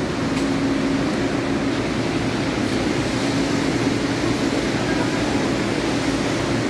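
A steady engine hum over an even rushing noise.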